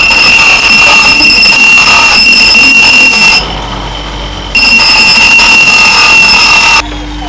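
Bench grinder grinding a steel rebar kris blade: a loud, steady, high-pitched whine of metal on the abrasive wheel. It breaks off for about a second about three and a half seconds in, then resumes, and breaks off again near the end, leaving a lower hum.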